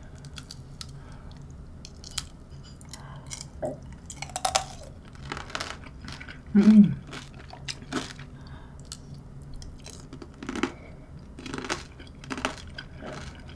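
Crunching and chewing of tangerine tanghulu, the hard sugar glaze on the mandarin segments cracking in irregular crunches between the teeth. A short hum comes about halfway through.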